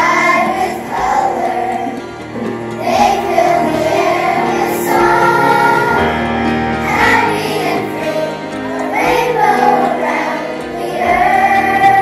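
Children's choir singing a song in chorus, with phrases rising and falling every few seconds over steady instrumental accompaniment.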